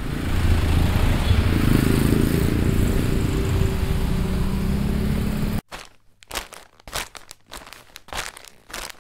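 Town street ambience sound effect: a steady traffic rumble and noise that cuts off suddenly about five and a half seconds in, followed by a string of short, uneven bursts of noise.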